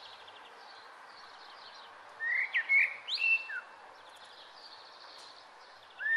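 Birds chirping over a steady hiss: a run of quick sliding chirps about two seconds in, softer chirps between, and another run starting at the very end.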